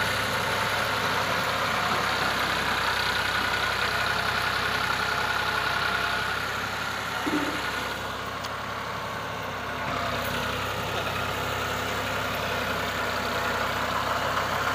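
Farm tractor's diesel engine running steadily at low speed, pulling a fully loaded sugarcane trolley.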